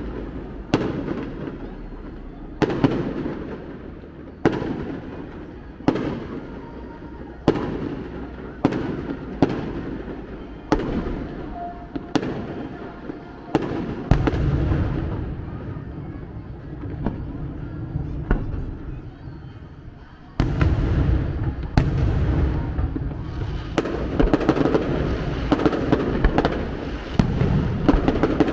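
Fireworks display: aerial shells going off with sharp bangs about every one to two seconds, each trailing off in an echo. About halfway through, a heavier low rumble of overlapping bursts sets in, and it gets louder again about two-thirds of the way in as the barrage thickens.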